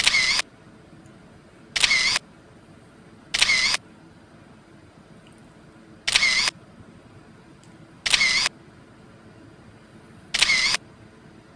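Six simulated camera-shutter clicks from a device taking screenshots, each short and identical, coming at uneven gaps of about one and a half to two and a half seconds.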